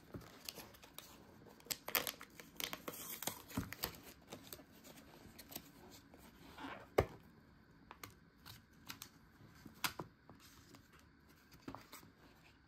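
Plastic food packaging being handled and opened: irregular crinkles, clicks and snaps, the sharpest snap about seven seconds in.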